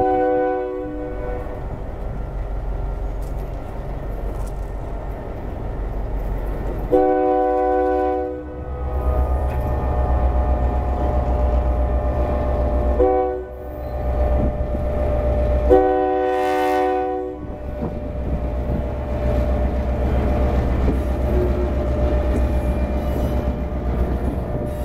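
Ex-Conrail EMD GP10 diesel locomotive sounding its multi-chime air horn in four blasts, long, long, short, long (the grade-crossing signal). It then passes close, its two-stroke diesel engine rumbling louder from about a third of the way in and its wheels clicking over the rail joints.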